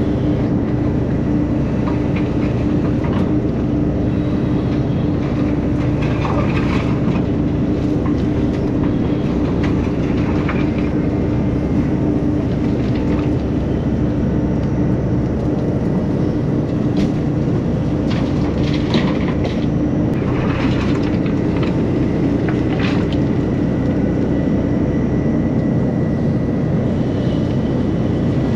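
Takeuchi TB2150 excavator running steadily while digging, its diesel engine and hydraulics making a constant drone with a held hum. Short metallic clanks and scrapes of the bucket and linkage break in now and then, most of them in the second half.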